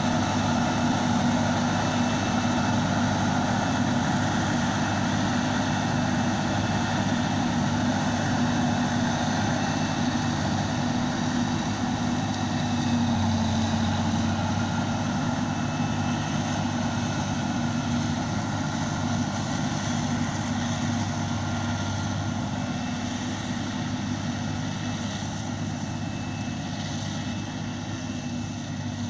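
Self-propelled forage harvester chopping maize and blowing the silage into a trailer pulled alongside, with the tractor running beside it: a steady heavy engine drone with a thin high whine over it, slowly fading as the machines move away.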